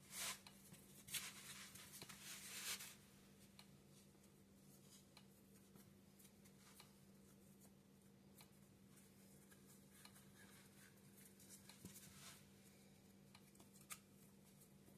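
Faint scratchy rustling of sourdough bread in the first three seconds, then scattered faint ticks and crackles, with one sharper click near the end.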